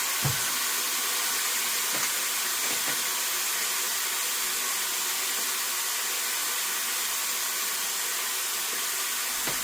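Chicken strips sizzling as they fry, a steady hiss, with a couple of faint knocks in the first two seconds.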